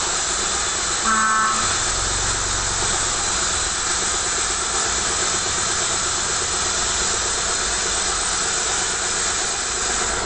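Steady road-traffic noise with a short vehicle horn toot about a second in.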